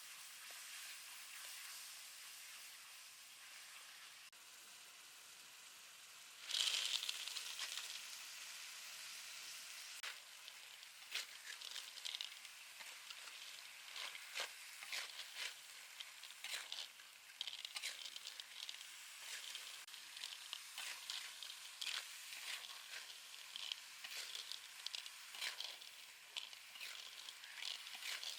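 Food frying in hot oil. A faint hiss turns into a sudden loud sizzle about six seconds in, as something goes into the pan, and is followed by steady crackling and popping.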